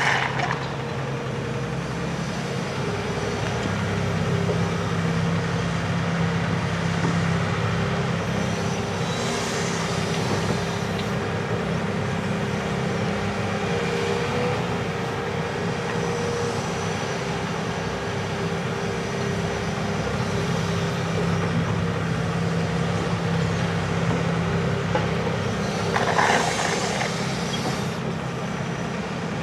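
Hitachi Zaxis 280 LCN hydraulic excavator's diesel engine running steadily as it works, its note strengthening and easing with the load. Short rushing noises break through at the start, about nine seconds in and near the end.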